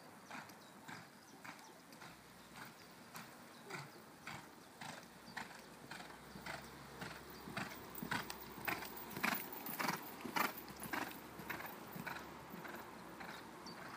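A ridden horse's hoofbeats on a sand arena, a regular beat about twice a second, loudest as the horse passes close by about eight to eleven seconds in.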